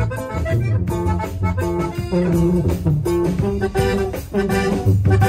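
Live norteño band playing an instrumental passage between sung verses: accordion melody over guitar, a tuba bass line and drums, with a steady beat.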